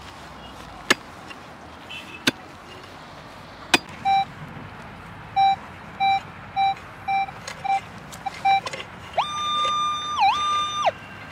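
Three sharp pickaxe strikes into dry ground, then a Minelab Equinox 600 metal detector beeping in short repeated tones as its coil passes over the dug spot, signalling a metal target. Near the end the detector holds a longer, higher tone that dips in pitch once and rises back.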